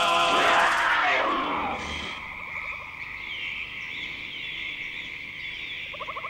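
Choral music fades out over the first two seconds, giving way to frogs croaking in rapid pulsed trills, twice, over a steady high chirring.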